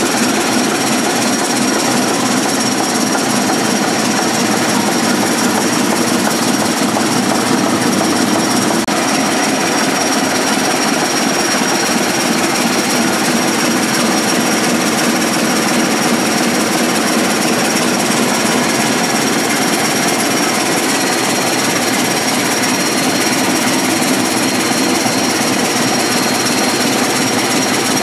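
The Rangatira freighter's ship engine, a large inline multi-cylinder engine, running steadily at a fast, even beat.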